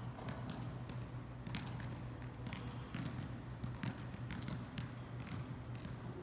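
Size 2 mini soccer balls being juggled by several players: irregular light taps of feet on the balls, with the odd bounce, a few per second. Under them runs a steady low hum.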